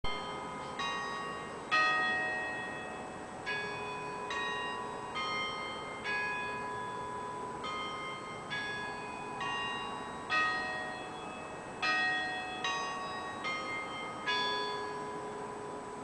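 Church tower bells ringing a peal: several bells of different pitch struck one after another, roughly once a second, each left ringing on as the next sounds. The strikes stop a little before the end, leaving the last one fading.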